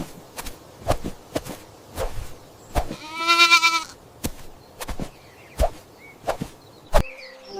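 One long, quavering bleat about three seconds in, among irregular sharp knocks or clicks, roughly one or two a second.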